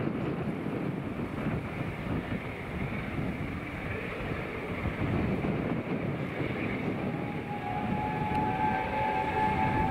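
Three-cylinder LNER Peppercorn A1 Pacific 60163 Tornado working hard uphill with its train, its exhaust a dense steady rumble. About seven seconds in, its whistle starts and holds one long steady note.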